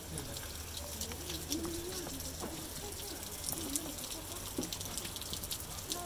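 Steady rush of the Staubbach waterfall, with water dripping and spattering in many short sharp ticks, and people's voices murmuring faintly on the path.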